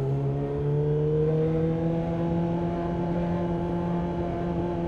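Sportbike engine running in a low gear at low speed, its note rising a little over the first second and a half, then holding steady.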